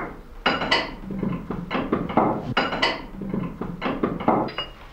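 Irregular knocks and metallic clinks, about a dozen in a few seconds, some with a short ring: wooden and metal parts being handled and fitted at an old clog-copying machine.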